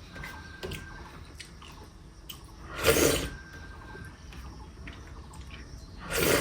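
A person eating with loud slurps, one about three seconds in and another near the end, and faint small clicks of eating between them.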